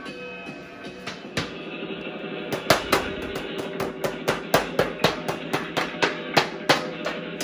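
Music with sustained tones, joined about two and a half seconds in by a steady beat of sharp percussive hits, about three to four a second.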